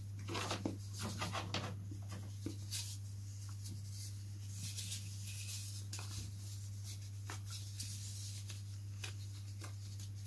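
Quiet room with a steady low hum, and faint clicks and rustles of small parts being handled, most of them in the first couple of seconds.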